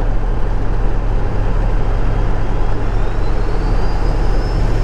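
Ford 7.3L Power Stroke V8 turbodiesel running while driving, a steady low drone with road noise. In the last second and a half a faint turbo whistle rises in pitch.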